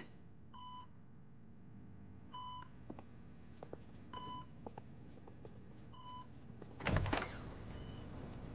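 Hospital bedside patient monitor beeping steadily, one short tone about every two seconds. About seven seconds in there is a brief thud, the loudest sound here.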